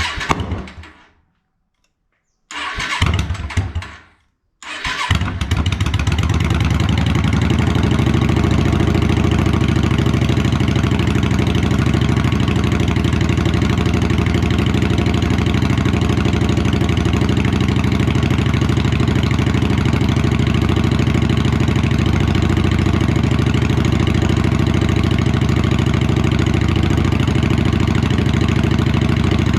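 Yamaha XVS650 air-cooled V-twin being started cold on choke: the electric starter cranks in two short bursts that don't catch. About five seconds in the engine fires and settles into a steady idle as it warms up.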